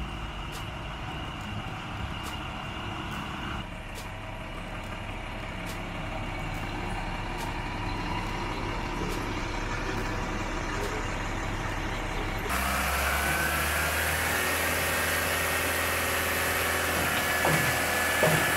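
Concrete truck and trailer-mounted concrete pump running steadily. About twelve seconds in the sound gets louder and hissier as concrete slides down the truck's chute into the pump hopper, with a few knocks near the end.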